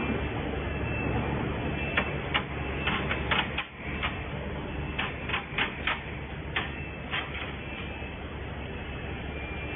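Refrigerator condenser welding machine running: a steady mechanical hum, with a run of sharp, irregular clicks and clacks from about two seconds in until about seven and a half seconds in.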